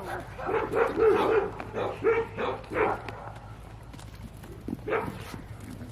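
Dogs barking, a quick run of short barks in the first three seconds, then quieter with a single bark near the end.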